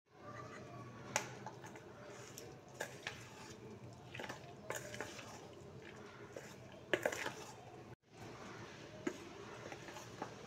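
Steel spoon stirring thick semolina and yogurt batter with chopped vegetables in a stainless steel bowl, with scraping and a few sharp clinks of metal on metal, the loudest about 1 s and 7 s in. The sound cuts out for an instant about eight seconds in.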